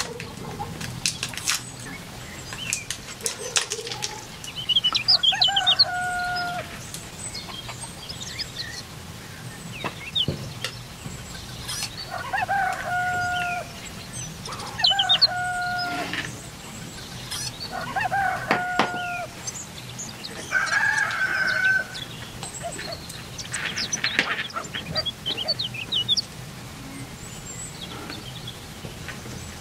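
Chickens calling again and again, a drawn-out call every few seconds, over light clicks and taps of small parts being handled.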